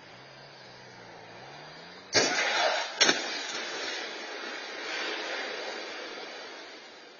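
Car collision on the road: a car engine's hum rises in pitch, then a sudden loud crunch of impact about two seconds in, a sharp second bang a second later, and noise slowly dying away.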